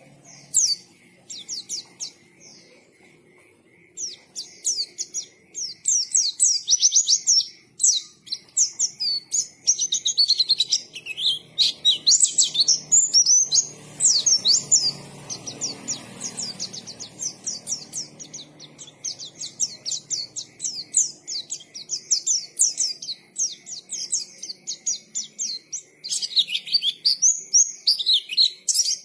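White-eye (pleci) in full song: a few single high chirps, then from about four seconds in a fast, unbroken run of high twittering notes.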